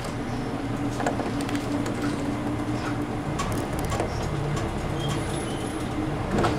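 City bus running slowly, heard from inside the cabin: a steady low engine and drivetrain hum with a few light rattles and clicks from the bus's fittings.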